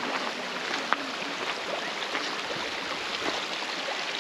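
Steady rush of flowing river water, with a few faint scattered ticks.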